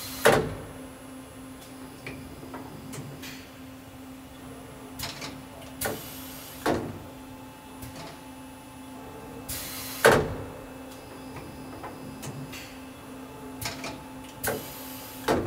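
Brother TC-32BN-QT CNC drill-and-tap machine working through its tool-change cycle: the tool-magazine shutter slides open and shut with several sharp clunks and brief hisses, loudest near the start and about ten seconds in, over the machine's steady hum.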